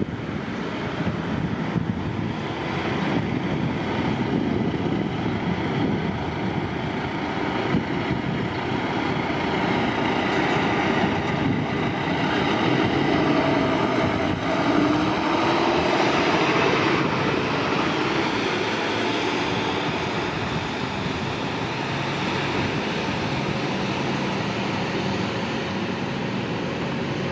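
Road traffic: steady vehicle engine and tyre noise, with a rising engine note about halfway through.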